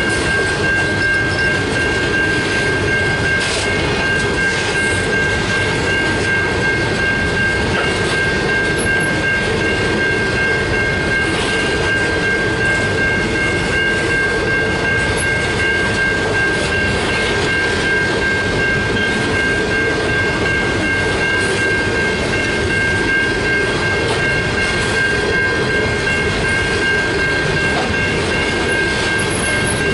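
Grain hopper wagons rolling past over the rails: a steady rumble with the clatter of wheels and occasional clunks. A steady high ringing runs throughout, the level-crossing bell sounding while the lights flash.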